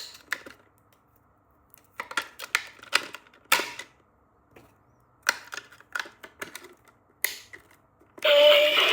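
Hands handling a plastic toy and its packaging: short clusters of sharp clicks and rustles with quiet gaps between them. Near the end, loud electronic music with a synthetic singing voice starts.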